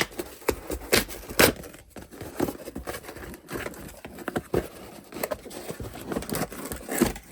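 A smoke alarm's box and packaging being opened by hand: irregular rustling, scraping and sharp clicks, the loudest about a second and a half in.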